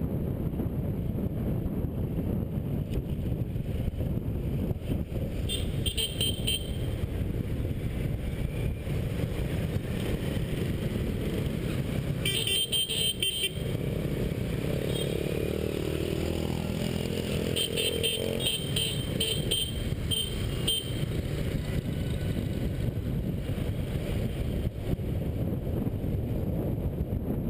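Riding a motorcycle through dense scooter traffic: a steady rush of wind and engine rumble on an action camera, with short high-pitched horn beeps sounding a few times, about six seconds in, around thirteen seconds, and a cluster near twenty seconds.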